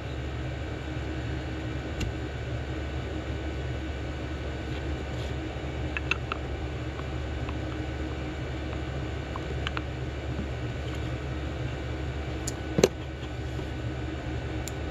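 Steady low background hum like a fan running, with a few faint clicks and taps as the small carburetor's float and body are handled by hand. The sharpest click comes near the end.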